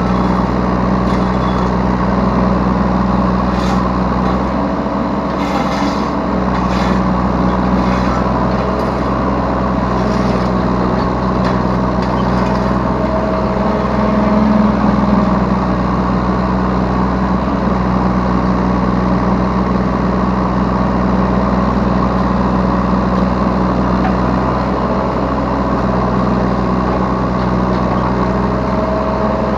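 Yanmar B3 Sigma 3-ton mini excavator's diesel engine running steadily, heard from the operator's seat, with a few short knocks about four to seven seconds in as the machine works.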